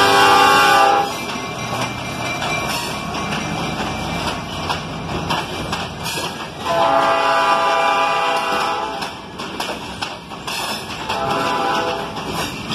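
Freight locomotive's multi-note air horn sounding three blasts: one ending about a second in, a longer one from about seven seconds in, and a shorter one near the end. Between the blasts, freight cars roll by with a steady rumble and clicking of wheels over the rail joints.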